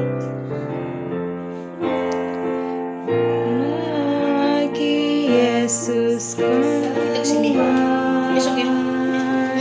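Digital piano playing held chords, with a woman singing along from about three seconds in, her voice sliding between notes.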